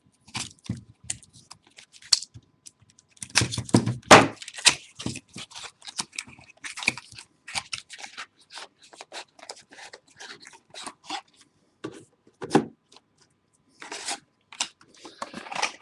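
Sealed trading-card box being opened by hand: a run of irregular crinkles, tears and small knocks of plastic wrap and cardboard.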